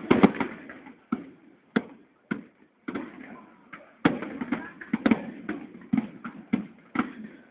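Fireworks bursting in an irregular string of sharp bangs, each trailing off briefly. The bangs come thick and fast at first, thin out for a couple of seconds, then come quickly again from about four seconds in. The sound is heard through a phone's microphone, with the top end cut off.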